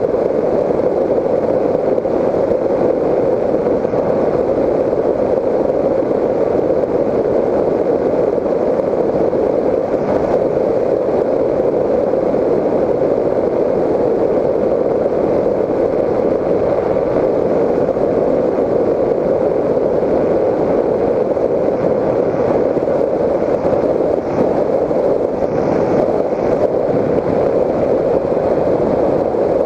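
Steady, even rush of airflow with the drone of the electric motor and propeller of an RC FPV plane in flight, heard through the onboard camera's microphone and strongest in a low-mid band.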